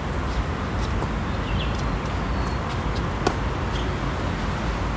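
Tennis rally on a hard court: a few sharp racket-on-ball hits and ball bounces, the loudest a topspin forehand from close by about three seconds in, over a steady low background noise.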